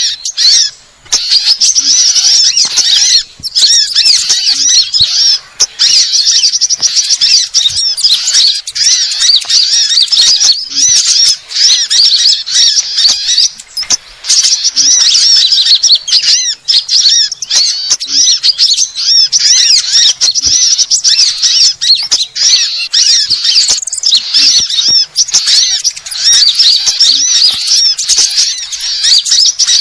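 Bird-trapping lure recording of small songbirds: dense, loud, high-pitched chattering and chirping, many rapid calls overlapping with hardly a pause.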